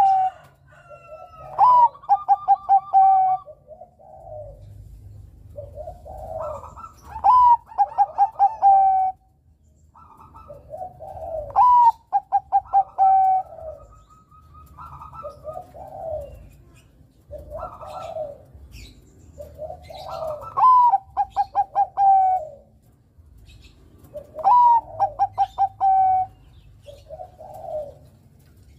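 Bangkok-strain perkutut (zebra dove) cooing. Phrase after phrase every few seconds, each a rising note, then a quick run of stuttering notes, then a longer held coo, with softer coos in between.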